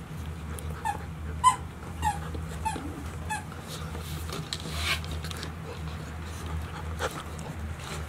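Golden retriever puppy whimpering in a string of short, high squeaks, about two a second through the first half, over a steady low hum. A brief scuffle about five seconds in.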